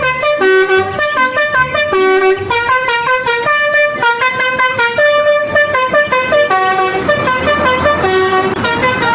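Telolet bus horn sound: a multi-tone musical horn playing a quick tune of stepped notes, each held a fraction of a second.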